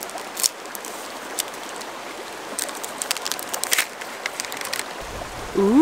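Plastic wrapping being cut and peeled off the cork grip of a new fly rod: a scatter of short crinkles and snips over the steady rush of a mountain stream.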